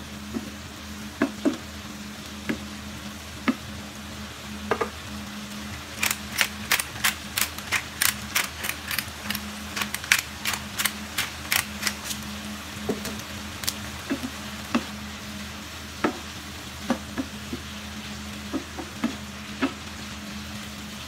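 Beef strips and vegetables sizzling in a non-stick frying pan as a wooden spoon stirs them, with sharp clicks and scrapes of the spoon against the pan. The clicks come quickly, about three or four a second, for several seconds around the middle, and are sparse before and after.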